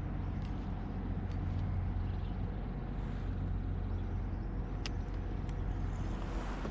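Small electric motor on a fishing kayak running with a steady low hum.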